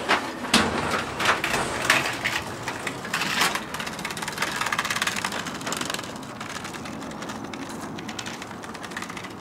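Child's kick scooter rolling out of an elevator onto platform paving, its small plastic wheels clattering and rattling irregularly over the joints and tiles, then settling into a quieter, steadier rolling rattle after about six seconds.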